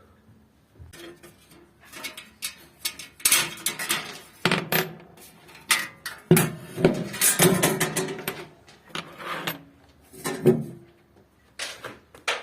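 Irregular clattering knocks and clicks of hand tools against metal and plastic air-conditioner parts as they are unscrewed and handled, in uneven clusters with short pauses between.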